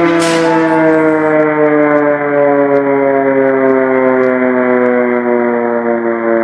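Air-raid siren wailing, its pitch falling slowly and steadily.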